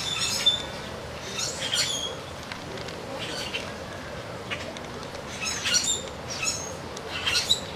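Small aviary birds chirping in short bursts of high twittering, about six times, over a faint steady background hiss.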